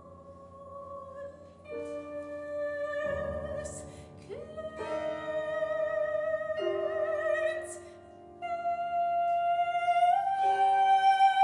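Soprano singing long held notes with vibrato that slowly climb higher, over a grand piano in contemporary classical style. The pianist plays partly inside the case, directly on the strings, and a deep low piano sound comes in about three seconds in.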